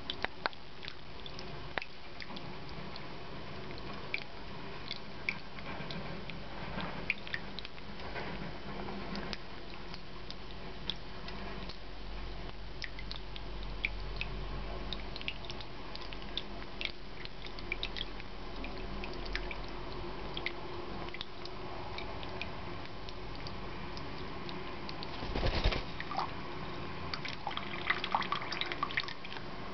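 Tabletop ceramic fountain trickling and dripping steadily into its bowl, with a low steady hum underneath and scattered small ticks. About 25 seconds in there is a brief louder scuffle as the cockatiel moves about on the fountain, followed by a few sharper clicks.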